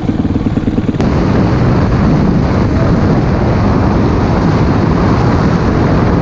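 Honda CRF450X's single-cylinder four-stroke engine running at low revs, its firing pulses distinct. About a second in, the sound cuts abruptly to the bike under way at speed: steady engine noise mixed with wind on the microphone.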